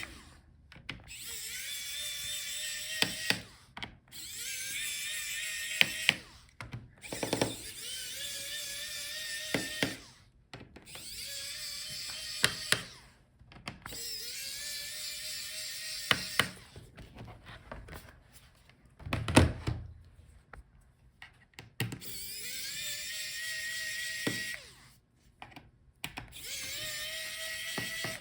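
Small electric screwdriver backing out the bottom case screws of a laptop, one after another: about seven short runs of motor whine that rises in pitch and then holds steady. Sharp clicks come between the runs as the bit is set on each screw and lifted off.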